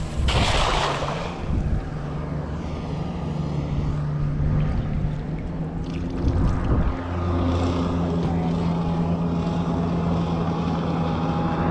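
A cast net lands on the water with a short splash, then a motorboat's engine drones steadily, louder from about seven seconds in.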